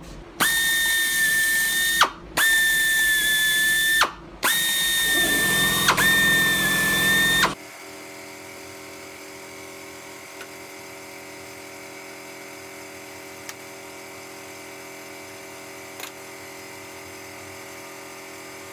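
Pneumatic air drill whining in four short runs, drilling holes through aluminium stiffeners and skin. Its steady high pitch dips as each run stops, and a rougher cutting sound comes in during the last run. After about 7.5 seconds only a steady faint hum remains.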